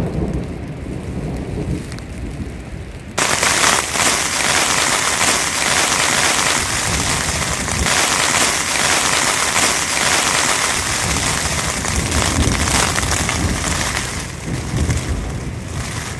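Mountain thunderstorm: low rumbling thunder, then about three seconds in a sudden, loud, steady hiss of heavy rain begins. More low rumbles of thunder run beneath the rain near the end.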